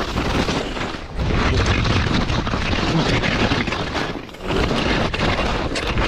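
Wind buffeting the microphone of a skier's camera, mixed with skis hissing through soft snow on a downhill run. The noise dips briefly about a second in and again just past four seconds.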